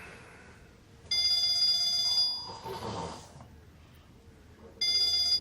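Phone ringing twice with a steady electronic ringtone, each ring about a second long. Between the rings a sleeping man snores once.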